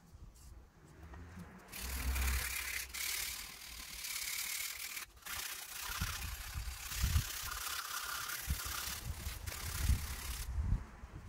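Abrasive paper rubbed by hand over the steel of a Hults Bruk axe head clamped in a vise: a continuous scratchy hiss that starts about two seconds in, breaks off briefly twice and stops shortly before the end, with a few dull handling knocks.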